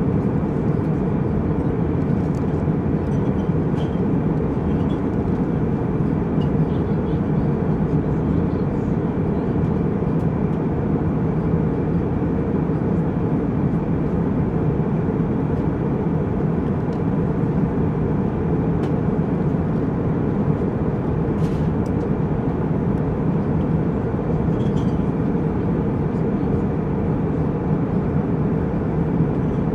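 Jet airliner cabin noise: a steady, even low rush of engines and airflow with a faint steady tone running through it, and one faint click about two-thirds of the way through.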